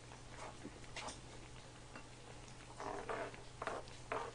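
Wooden spoons stirring and scooping in a large pan of simmering rice-cake soup, with a few soft scrapes and knocks near the end over a steady low hum.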